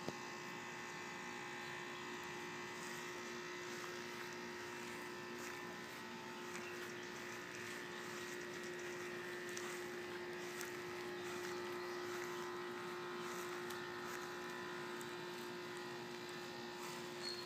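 A steady mechanical hum at one constant pitch with fainter overtones, unchanging throughout, with a few faint ticks scattered over it.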